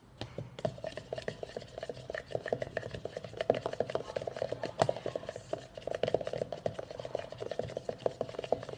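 A spoon stirring hand soap and salt fast in a cup, with a rapid run of small clicks and scrapes of the spoon against the cup as the mixture is whipped into bubbles; the stirring eases off near the end.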